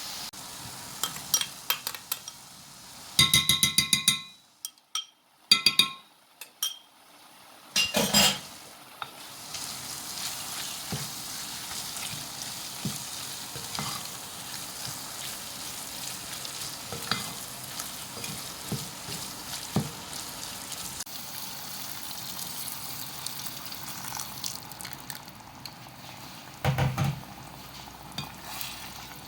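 Pork stroganoff frying in a pan, with a steady sizzle while a utensil stirs it. Sharp clinks and scrapes against the pan come in the first few seconds, and a dull knock comes near the end.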